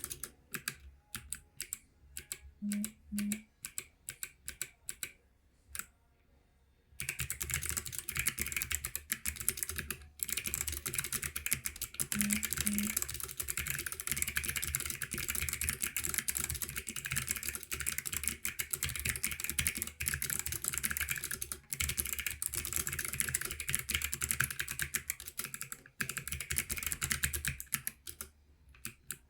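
Typing on a Planck EZ ortholinear keyboard with clicky Kailh Box White switches: a few separate keystrokes at first, then, after a short pause about seven seconds in, fast continuous typing, crisp clicks with brief breaks.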